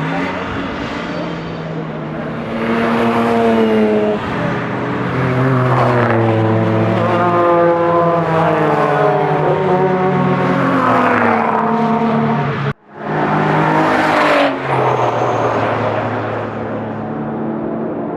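Car engine driven hard, revving up and dropping back again and again as it runs through the gears. The sound cuts out for an instant about thirteen seconds in.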